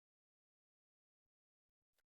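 Near silence, with a few very faint clicks in the second half.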